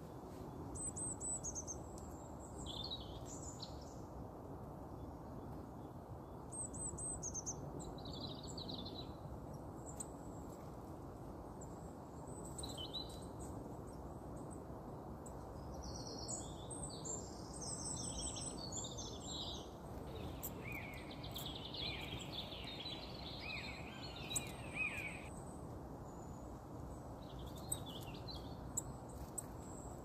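Wild birds calling and singing: short high chirps about a second in and again around seven seconds, then a busier run of song in the middle, over a steady low rush of ambient noise.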